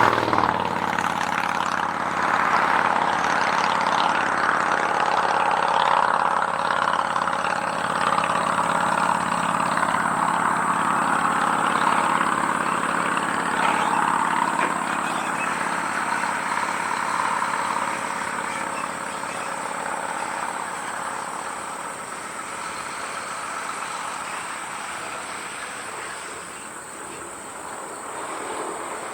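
A motor vehicle's engine running steadily, its sound slowly fading away. A thin, steady high-pitched tone lies over it.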